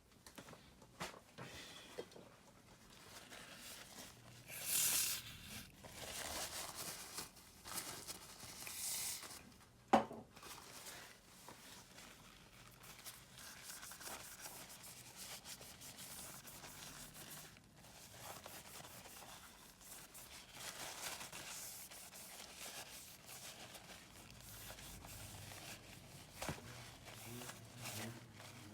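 Faint handling noises from hand work on a Samsung S24 smartphone during repair: soft rubbing and scraping, two longer hissing scrapes, and one sharp click about ten seconds in.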